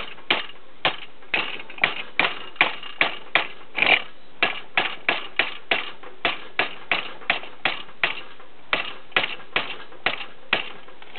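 Hammer striking a grade 8 steel bolt clamped in a bench vise, bending it over: a steady run of sharp metal-on-metal blows, about three a second. The bolt bends without snapping.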